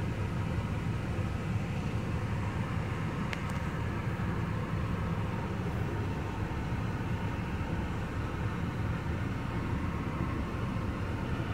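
Semi truck's diesel engine running with a steady low rumble, heard from inside the cab, with a faint click about three seconds in.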